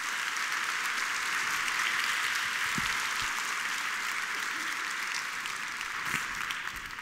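Audience applauding steadily, dying down at the end.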